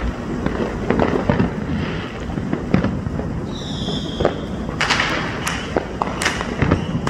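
Fireworks and firecrackers going off in a steady barrage of pops and bangs of varying loudness over a constant low rumble, with a brief high whistle about halfway through.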